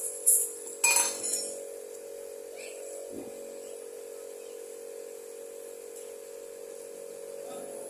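Two sharp metallic clinks in the first second, then a steady electrical hum.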